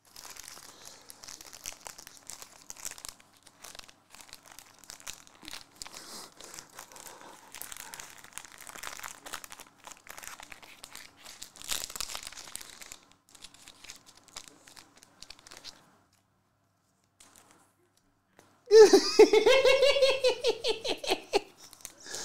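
Soft crinkling and rustling of foil trading-card pack wrappers and cards being handled. After a short lull, about three quarters of the way in, a man laughs out loud for a couple of seconds.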